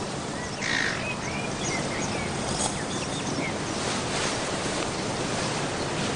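Outdoor ambience: a steady rushing wash with short chirping bird calls over it, most of them in the first two seconds.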